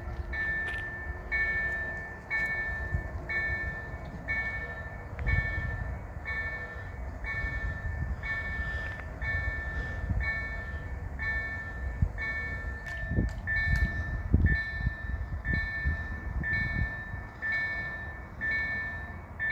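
Level crossing warning bell ringing, an electronic ding repeating evenly about every three-quarters of a second, the signal that a train is approaching and the barriers are down. Wind buffets the microphone with a low rumble, gusting harder about two-thirds of the way in.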